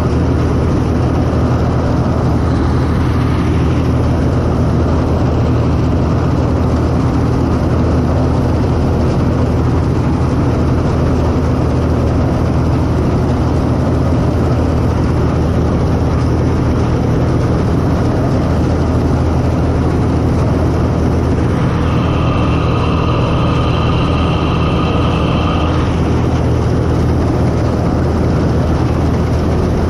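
CLAAS Mercator 50 combine harvester running steadily under load while cutting and threshing wheat, its engine and threshing machinery making a loud, even drone. About three-quarters of the way through, a high steady whine sounds on top for about four seconds, then stops.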